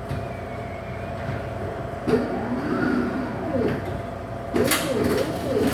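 Coca-Cola drink vending machine's delivery mechanism running as it vends the selected drink: a steady motor whine, then whirs that rise and fall in pitch, with a clack about two seconds in and clunks near the end.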